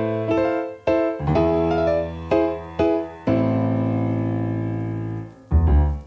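Background music: a piano playing notes and chords, with one chord held for about two seconds in the second half.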